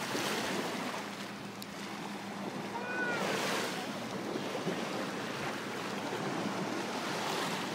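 Steady noise of wind and small waves lapping at the water's edge of a lake, with a faint voice briefly about three seconds in.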